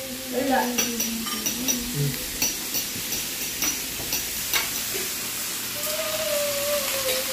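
Beef sizzling on the grill plate of a Ninja Sizzle indoor electric grill, a steady hiss. A metal fork clicks and scrapes against the plate several times between about one and four and a half seconds in as the meat is turned.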